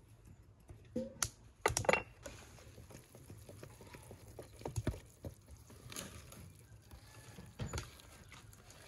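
A few sharp clinks about one to two seconds in as a small glass dish of flour is emptied over a plastic mixing bowl, then a wire whisk stirring flour into beaten eggs, its wires scraping and clicking irregularly against the plastic bowl.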